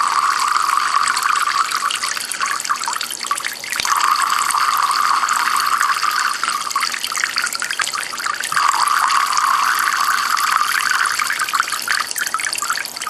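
Water streams from a homemade Kelvin water dropper falling and splashing steadily into its two collecting cans, a continuous trickling. The splashing drops away briefly twice, about a third and two-thirds of the way through.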